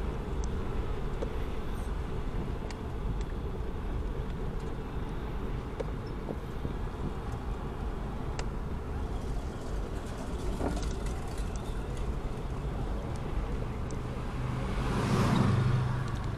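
Steady low rumble of street traffic, with one vehicle passing louder near the end, swelling up and then fading.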